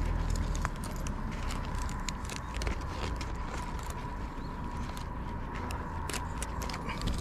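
Irregular small clicks and rattles of fishing tackle being handled while a caught snakehead is unhooked, over a faint steady high tone.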